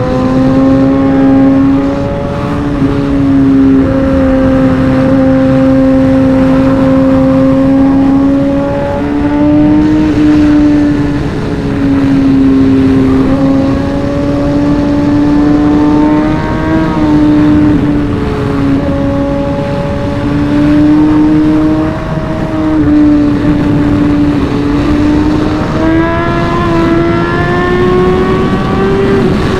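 A superbike's inline-four engine running hard at high revs while riding, its pitch climbing slowly and dipping back several times as the throttle opens and closes, over wind rush.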